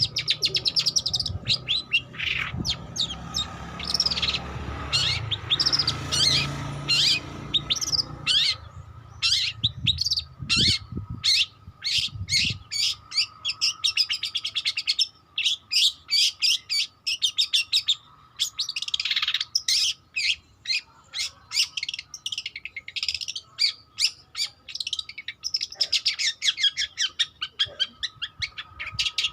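Young long-tailed shrike singing its learning song: a varied, rapid run of short chirps and chattering trills. A low background rumble sits under it for about the first twelve seconds.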